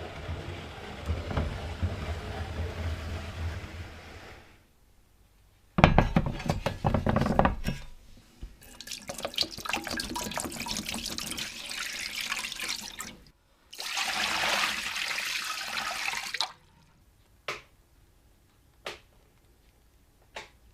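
Water running and splashing in several bursts, the second starting suddenly and loudest, then a few light knocks near the end.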